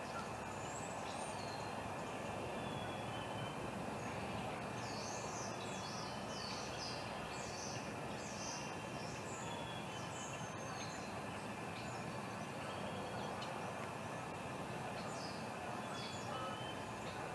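Small songbirds chirping and singing in quick runs over a steady background rush of outdoor noise, with a busy stretch in the middle and another near the end.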